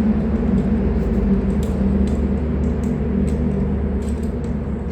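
Steady, loud mechanical hum of a running engine or motor, with scattered light clicks of metal tools.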